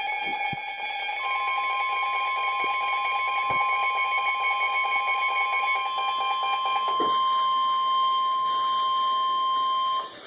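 NOAA Weather Radio's 1050 Hz warning alarm tone: one steady high tone starting about a second in, held for about nine seconds and cutting off suddenly near the end, announcing the flash flood warning broadcast. Under its first part a lower, rougher alarm tone sounds until about seven seconds in.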